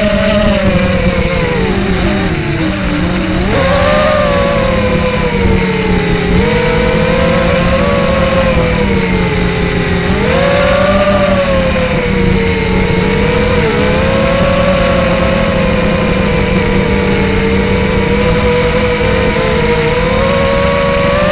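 Mini FPV quadcopter's brushless RCX 1806 motors spinning 5040 three-blade props, heard from the onboard camera: a loud, steady whine that rises and falls in pitch with the throttle. The pitch dips about two to three seconds in and climbs sharply about three and a half and again about ten and a half seconds in, over a steady low hum.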